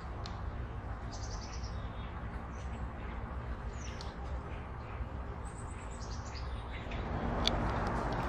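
Small birds chirping: a quick run of high chirps about a second in and a falling series of high notes a little past the middle, over a steady low background rumble. A single sharp click comes near the end.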